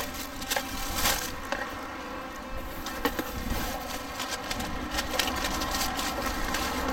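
Plastic food pouches and packaging crinkling and cardboard box flaps rubbing as the packs are handled, in scattered short rustles. A steady hum runs underneath.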